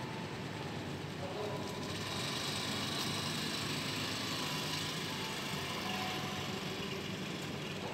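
Steady hiss and rumble of street traffic and motorbikes from the road below, swelling slightly for a few seconds in the middle.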